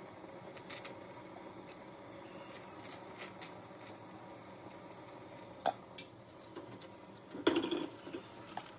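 Small clinks of a ladle against stainless-steel idli plates as batter is poured into the molds, over a low steady hiss. Near the end comes a louder metal clatter as the steel idli plates are stacked in the steamer pot.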